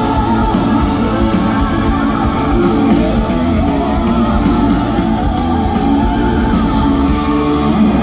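Live rock band playing loud and full: electric guitar to the fore over bass and drums, heard from within the audience.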